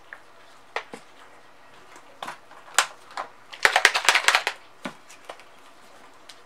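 Plastic paint squeeze bottles handled on a work table: scattered clicks and knocks as they are set down and picked up, with a short clatter of rapid knocks a little past the middle.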